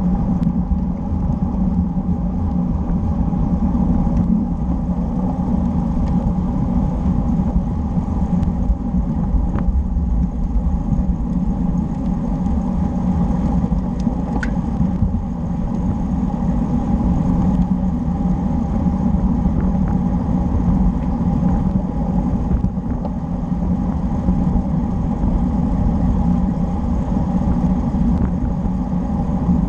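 Steady wind rumble on the microphone of a camera riding along on a moving road bike, mixed with the hum of the bike's tyres on asphalt.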